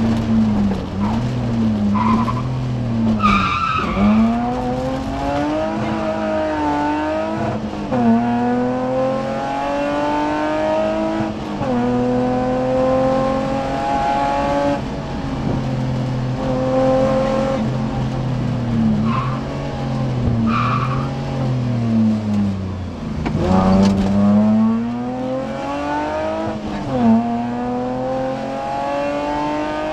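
In-car sound of a BMW E30 rally car driven hard on a stage. The engine pulls up through the revs, with sharp drops at each upshift. In the middle it lifts and blips the revs up and down while slowing, then accelerates hard again. A few short high squeals cut in over the engine.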